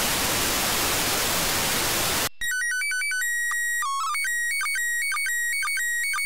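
Radio static hiss from the receiver for about two seconds, then it cuts to the International Space Station's slow-scan television (SSTV) signal: a quick sequence of stepping beeps as the transmission header, then steady warbling tones with a short blip about twice a second as the image lines are sent.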